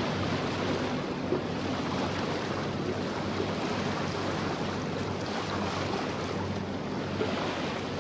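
Steady rush of water and wind on the microphone from a sailing yacht under way, with a low, even hum underneath.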